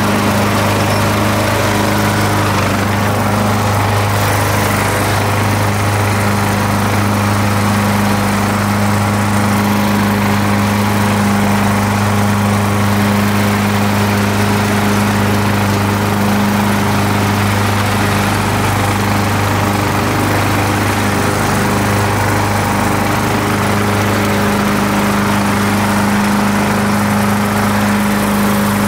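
Riding lawn mower engine running steadily at a constant speed while cutting grass: an even, unbroken drone.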